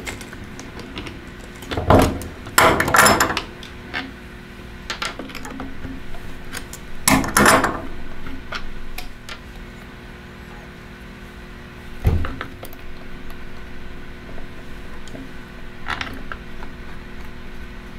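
Pliers and small threaded metal pins clicking and knocking against the plastic handle and aluminium trip plate of a Van Dorn water sampler as the pins are unscrewed and the plate is handled. The clinks come irregularly, with the loudest knocks about two seconds in and again about seven seconds in.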